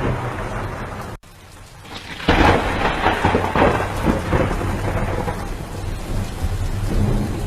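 Heavy rain pouring down with a deep low rumble. The sound drops away abruptly just over a second in, swells back, and returns loud again about two seconds later.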